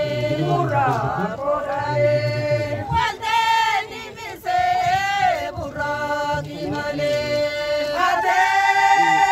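A group of voices singing a chant in long held notes that slide in pitch, with high voices carrying the line over lower ones.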